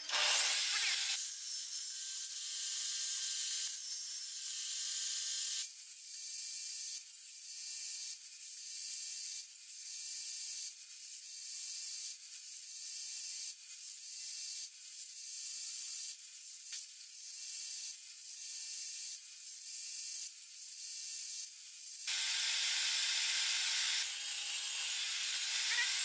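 Table saw cutting a row of closely spaced shallow kerfs into the edge of a pine pallet board, one cut about every second through the middle stretch. The saw runs steadily at the start and near the end.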